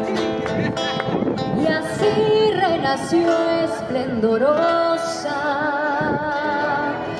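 A woman singing a slow song with held, wavering notes, accompanied by a plucked acoustic guitar.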